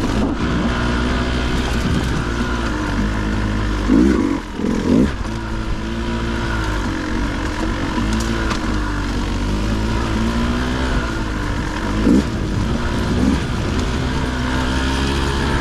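Dirt bike engine running under varying throttle over rough trail, pitch rising and falling continually, with short sharp throttle blips about 4, 5, 12 and 13 seconds in.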